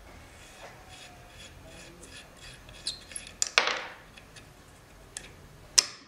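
Hand-tool work on an old clothes iron's handle nuts with locking pliers: a quick run of light, even metal ticks at about four a second, then sharp metallic clicks and clanks, the loudest just past halfway with a short ring and another sharp one near the end.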